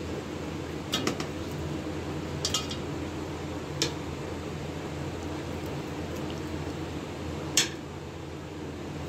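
A few sharp metallic clinks of a utensil against a cooking pot, coming singly and in quick pairs, the loudest near the end.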